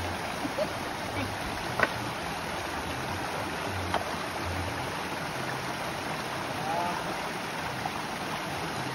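Shallow rocky stream running steadily over stones, with two sharp clicks, about two and four seconds in.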